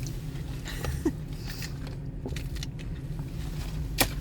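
Steady low rumble of a car heard from inside the cabin, with two sharp clicks, one about a second in and a louder one near the end.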